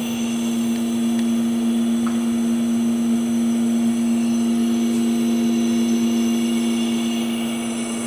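Steady electric hum of an SNK Prodigy GT-27 CNC gang tool lathe running, with one strong low tone, weaker tones above it and a faint high whine. It grows a little louder as the microphone nears the open work area.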